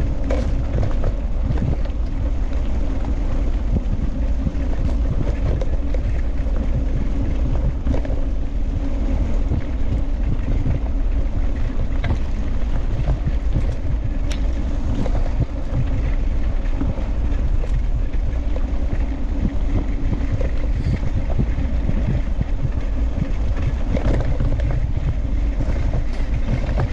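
Steady rumble of a dog scooter rolling fast over a dirt forest track behind a pulling dog: tyre noise on the ground and wind on the microphone, with occasional clicks and knocks from the scooter.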